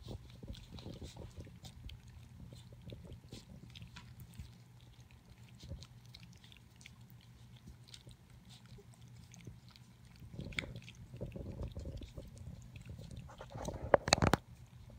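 Puppies lapping milk from a stainless steel bowl: a steady run of small, quick wet licks and tongue clicks. Near the end come a few sharp, louder knocks.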